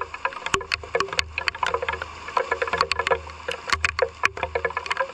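Rain falling, with large drops tapping irregularly and rapidly on a hard surface close by. A low rumble comes and goes underneath.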